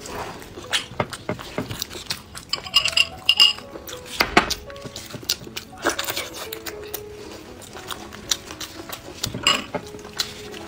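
Close-miked eating sounds of a large sausage being bitten, sucked and chewed: irregular wet clicks, smacks and squelches from mouth and gloved hands, with background music.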